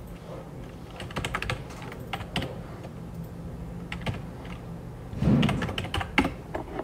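Typing on a computer keyboard: irregular runs of key clicks with short pauses between them, over a steady low hum. A louder low thump comes about five seconds in.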